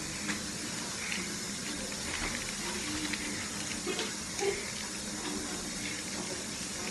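A steady background hiss with a few faint clicks and rustles, typical of small toy packaging being handled.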